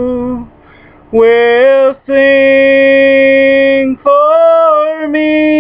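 A man singing solo and unaccompanied, holding long wordless notes. After a short pause near the start, he sings a held note that slides up, then a steady tone of about two seconds, then another note that rises in pitch.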